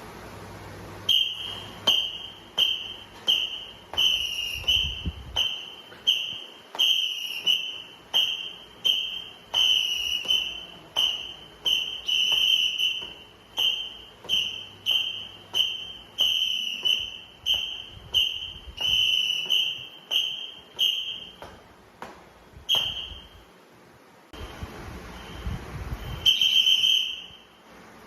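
Whistle blown in short, even blasts about every three-quarters of a second, beating time for an alternating knee-raise calisthenics drill. After a pause come a single blast and then a longer blast near the end.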